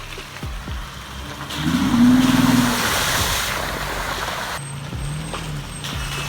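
A vehicle's engine revs up briefly about a second and a half in, over a broad rush of tyre and road noise. The engine then settles to a lower, wavering drone.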